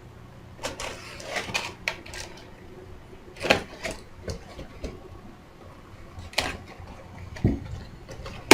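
A cardboard shipping box being opened by hand: packing tape ripping and cardboard flaps scraping and rustling in several sharp bursts, with a dull thump near the end, over a steady low hum.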